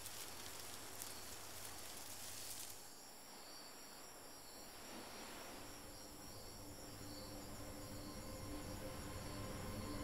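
Faint night-time rainforest insect chorus, a high, fine chirring that changes character about three seconds in. Faint steady low tones build up in the second half.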